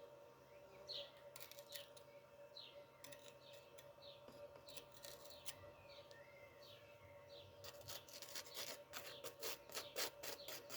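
Small birds chirping over a faint steady hum, with a quick run of scratchy strokes, like hand filing or sanding, for a few seconds near the end.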